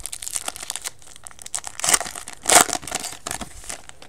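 Foil wrapper of a Bowman baseball card pack crinkling and tearing as it is opened, with two louder rips about two and two and a half seconds in.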